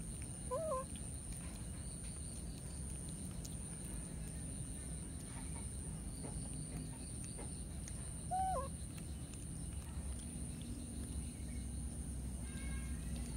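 Baby macaque giving two short coo calls about eight seconds apart, each one rising then falling in pitch.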